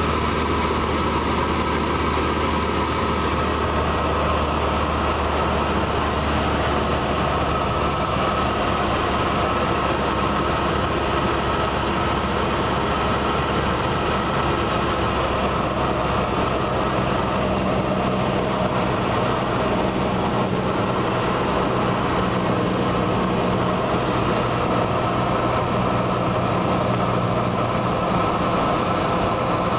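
Cessna 172S's four-cylinder Lycoming piston engine and propeller running steadily in flight, heard from inside the cockpit. The engine note shifts a little about halfway through.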